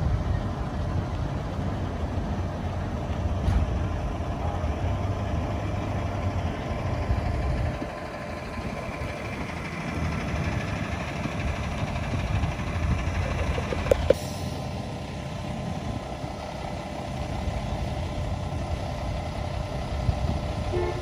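Vehicle engine running at low speed, a steady low rumble that eases about eight seconds in, with a brief sharp click about fourteen seconds in.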